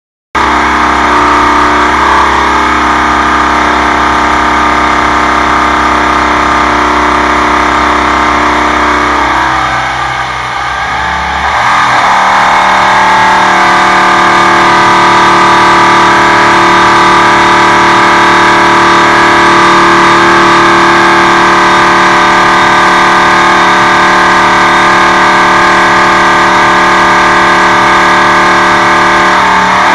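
Irving Vincent 1300cc V-twin engine running loud on an engine dynamometer, held at a steady speed. About ten seconds in the sound dips briefly and changes, then the engine runs steadily again at a new speed.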